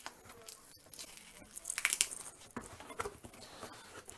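Shipping package being torn open: packing tape and packaging tearing and crinkling in irregular rustles, loudest about halfway through.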